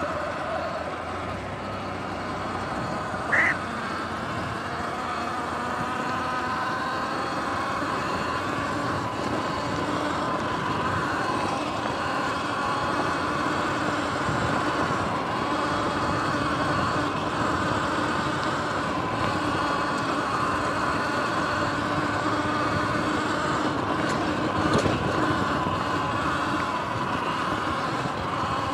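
Sur-Ron Light Bee electric dirt bike riding over grass and dirt: a steady motor and drivetrain whine over tyre and ground noise. A brief high squeak stands out about three seconds in.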